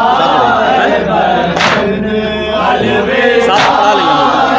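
Men chanting a Shia noha (mourning lament), with a sharp slap of matam (hands beating on chests) in time about every two seconds, twice here.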